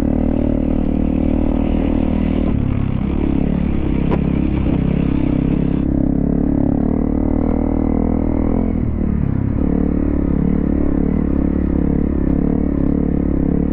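250 cc single-cylinder dual-sport motorcycle engine running at riding speed, its pitch wavering gently up and down with the throttle.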